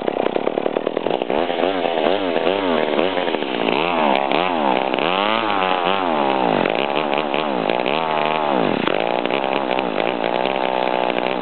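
McCulloch Eager Beaver two-stroke chainsaw catching and running, its engine revved up and down again and again with the throttle, then cutting out near the end. It is a hard-starting saw that does not stay running.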